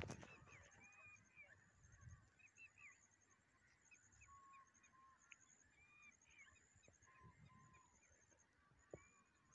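Faint chirps, short rising calls and high trills of several birds, with a sharp click at the very start and another near the end.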